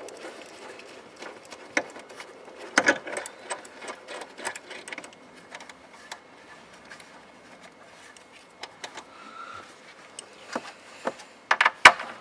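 Small ratchet with an 8 mm socket clicking in quick runs while unscrewing the nuts that hold a tail light, with small knocks of metal and plastic between runs. The loudest knocks come near the end.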